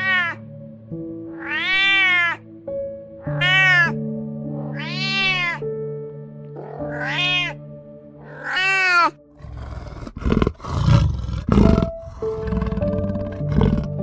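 Domestic cat meowing about six times, each call rising then falling in pitch, over soft background music. From about nine seconds in, a black panther's low, rough growls take over.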